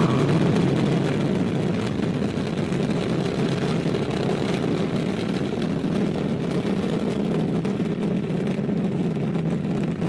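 Ariane 5 rocket's two solid rocket boosters and liquid-fuelled Vulcain main engine firing during the climb just after liftoff: a steady, deep rumbling roar, easing slightly in the first couple of seconds and then holding even.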